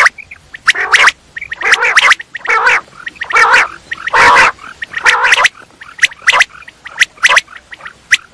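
Common quail calling: a rapid string of sharp, clicking notes, with harsh rasping calls mixed in through the first half, then only the short sharp notes.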